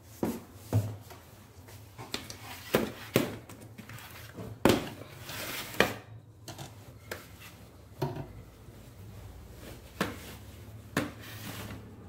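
Clothes being handled and loaded by hand into the drum of an LG front-loading washer-dryer with its door open: a string of sharp knocks and clacks among short bursts of cloth rustling.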